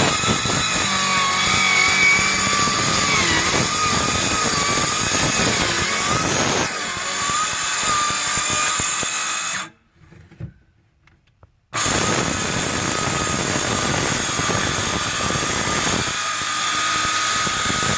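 Small electric power saw running under load as it cuts the entrance opening in a beehive wall, its motor pitch wavering as it bites. It stops for about two seconds near the middle, then starts and cuts again.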